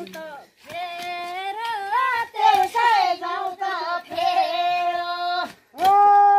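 A woman's high voice singing a Nepali folk work song solo, in wavering, ornamented phrases, with a long held note starting near the end.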